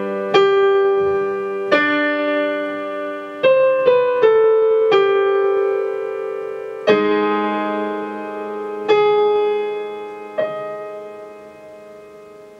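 Digital piano playing the accompaniment for a vocal warm-up exercise, with no voice over it. Chords are struck every second or two, with a quick run of notes about four seconds in, each left to ring and die away; the last one fades out near the end.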